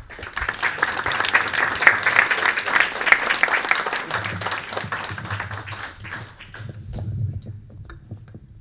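Audience applauding, dense clapping that fades out about six seconds in. Low bumps and rumble follow as the microphone stand is adjusted.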